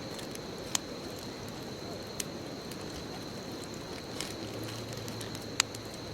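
Bonfire of burning wood crackling with a steady hiss, broken by four sharp pops; the loudest pops come a little under a second in and near the end.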